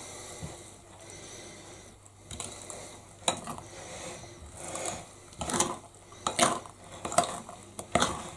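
A spoon stirring thick banana bread batter in a glass mixing bowl, with irregular scrapes and clinks of the spoon against the bowl's sides and bottom.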